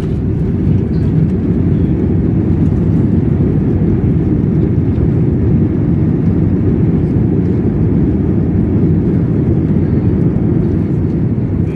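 Cabin noise of an Airbus A320-family airliner on its landing rollout just after touchdown: a loud, steady low rumble of engines, wheels and rushing air, heard from inside the cabin.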